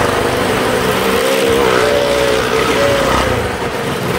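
Motorcycle engine running hard and revving as the bike circles the vertical wooden wall of a well-of-death drum. The engine note climbs a little over a second in, holds, drops, then rises briefly again.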